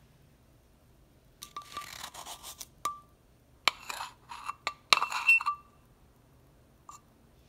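A small plastic measuring spoon scrapes and clicks against a metal baking powder tin as it scoops out powder and levels it off. Several short bursts of scraping are punctuated by sharp clinks that make the tin ring briefly, with one faint click near the end.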